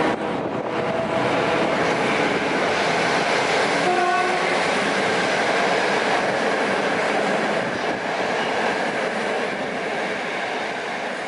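Passenger coaches of a train hauled by an EP05 electric locomotive rolling past close by: steady wheel and rail noise, with a brief pitched tone about four seconds in. The noise eases off slightly near the end as the last coach goes by.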